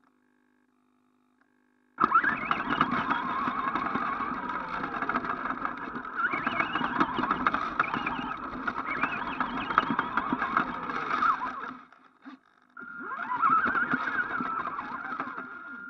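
Electric motor and drivetrain of an ECX AMP radio-controlled truck driving over grass, heard through a camera strapped to the truck: a loud whine that rises and falls with the throttle, mixed with rattling and tyre noise. It starts about two seconds in, cuts out briefly near the end and picks up again.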